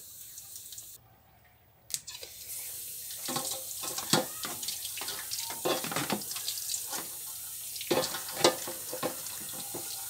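Water running from a hose onto a plastic fan blade and splashing into a metal basin, with hands rubbing and knocking the soapy blade under the stream. A short gap of near silence about a second in.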